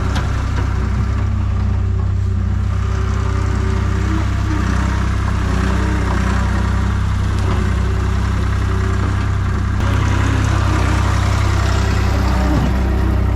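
A heavy engine of outdoor machinery running steadily at constant speed, slightly louder from about ten seconds in.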